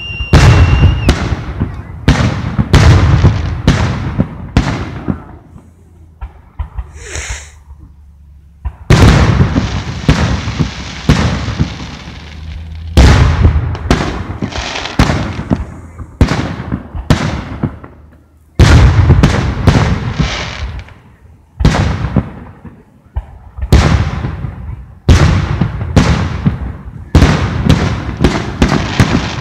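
Aerial firework shells bursting in quick succession: loud booms, each trailing off, one to two seconds apart. There is a brief lull about six to nine seconds in.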